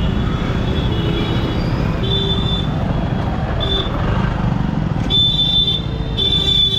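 Wind and road rumble while riding in traffic, with a vehicle horn honking several times: short toots about two seconds in and again shortly after, then two longer blasts near the end.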